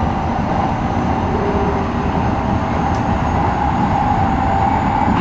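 Keikyu New 1000 series early stainless-steel electric train running at speed, heard from the driver's cab: a steady rumble of wheels on rail with a steady hum over it.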